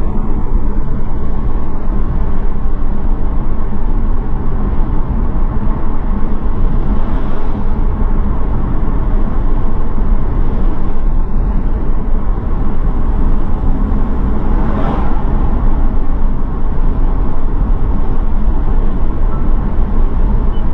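Car driving, with steady loud road and engine noise that cuts off abruptly at the end.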